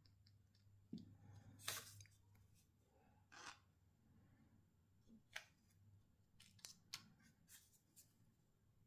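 Faint scattered clicks and taps of small parts being handled on a workbench: a small plastic tub, a wooden stick and a plastic disc being picked up and set down.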